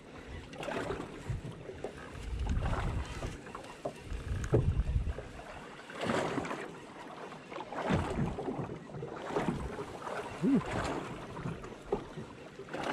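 Wind buffeting the microphone in uneven gusts, with water slapping against the hull of a drifting fishing boat. A few small knocks and a short creak come through the gusts.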